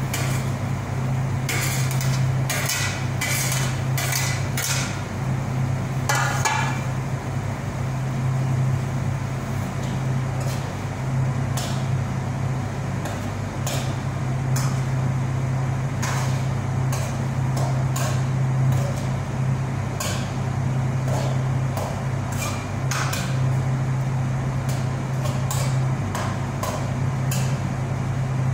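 Steady low hum of a kitchen range hood fan running over the stove. Irregular clinks and knocks of metal cookware and utensils are handled over it, a few ringing briefly.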